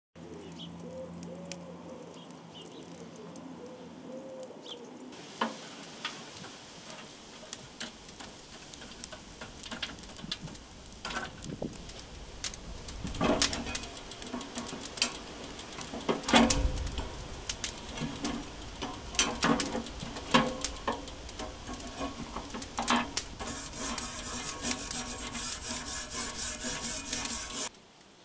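Metal clinks, knocks and scrapes on a charcoal grill's metal cooking grate as it is worked with a tool. Near the end there is a steady sizzling hiss while something is rubbed over the hot grate. The sound cuts off suddenly just before the end.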